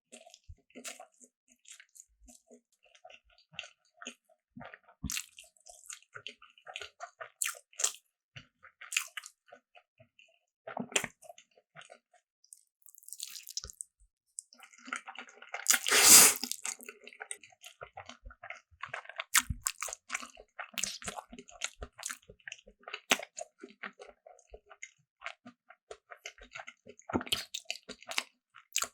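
Close-miked eating: repeated biting and chewing with crunches and wet, sticky mouth sounds. A longer, louder noisy stretch comes about halfway through.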